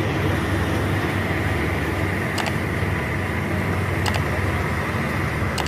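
Helicopter flying by, a steady engine and rotor drone with a low hum, with three faint clicks spaced through it.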